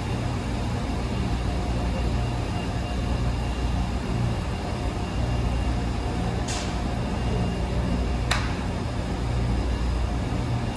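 Wascomat Senior W125 35-pound commercial washer running mid-cycle: a steady low motor hum that swells and eases in a slow rhythm as the drum turns. A brief hiss comes about six and a half seconds in, and a sharp click a couple of seconds later.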